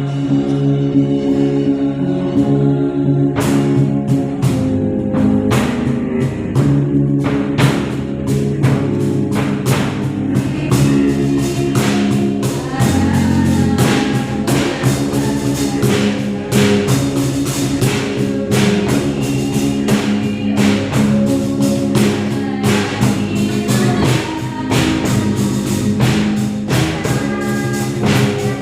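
A band playing a gospel song with a singing voice. Held chords open it, and the drums come in about three and a half seconds in with a steady beat.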